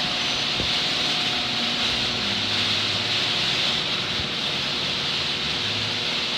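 Two Genie screw-drive garage door openers running at once, raising their doors with a loud, steady mechanical whir.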